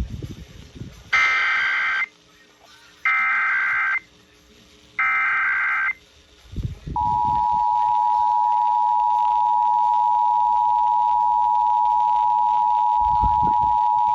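Emergency Alert System test signal: three one-second bursts of the SAME header's digital data tones, about two seconds apart, then the steady two-tone EAS attention signal from about seven seconds in.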